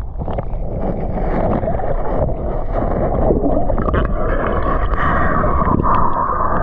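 Muffled water sloshing and rumbling around a camera held under shallow seawater, with a brighter hiss joining about four seconds in.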